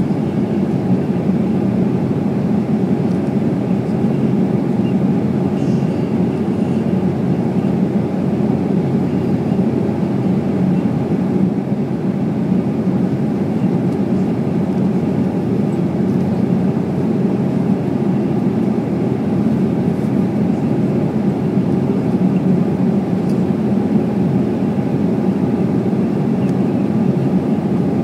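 Cabin noise of an airliner in flight, heard from inside the cabin: a steady, even, low rumble that does not change.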